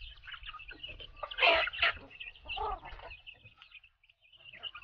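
A flock of native chickens clucking and calling, with two louder squawks about a second and a half in, and a brief lull near the end.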